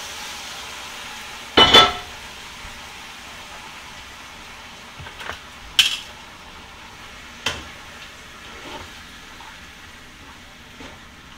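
Metal cookware and utensils clattering on a stovetop: one loud ringing clang about two seconds in, then a few lighter metallic clinks as the skillet is worked with tongs and a spoon. Under them a faint sizzle from the skillet of tomatoes and browned rabbit fades away.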